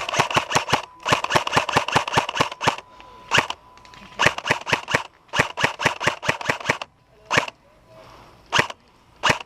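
Airsoft guns firing in rapid full-auto bursts of sharp clicks, about ten shots a second. There are several bursts of around a second each, then a few short bursts and single shots near the end.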